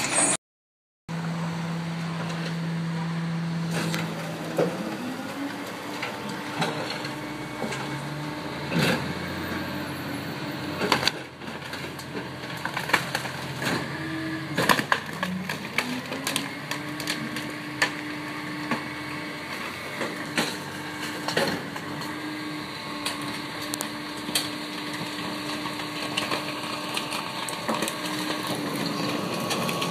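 Rear-loader garbage truck compacting a couch in its hopper: the engine speeds up to drive the hydraulic packer, eases back and speeds up again, while the furniture's frame cracks and crunches with many sharp knocks.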